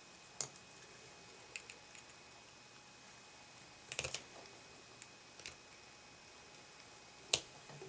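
Sparse small clicks and taps from picking apart the plastic and metal pieces of a headphone jack plug: about seven sharp ticks spread out, the loudest near the end.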